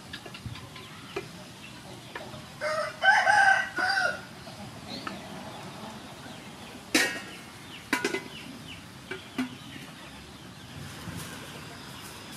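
A rooster crows once, about three seconds in, a call of about a second and a half with a wavering pitch. A few sharp knocks follow later.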